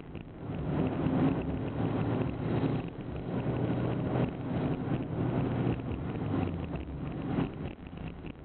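Sandstorm wind gusting and buffeting the microphone over the steady low hum of a vehicle engine, the level rising and falling with the gusts.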